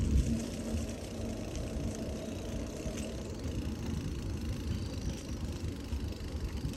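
Bicycle rolling along a paved trail: a steady low rumble of tyres on the surface with wind on the microphone, a little louder in the first moment.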